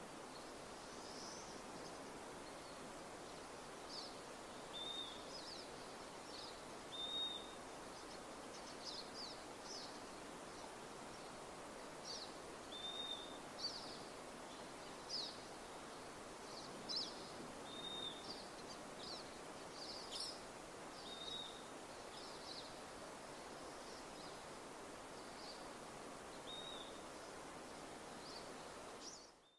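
Small birds chirping outdoors: short high notes every second or so, with a short whistled note repeated several times, over a faint steady background hiss. The sound cuts off just before the end.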